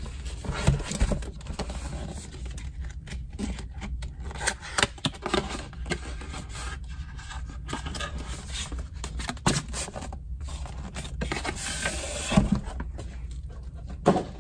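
Cardboard scraping and rubbing as a white paperboard sleeve is slid off a presentation box by hand, with a few sharper taps and knocks from handling.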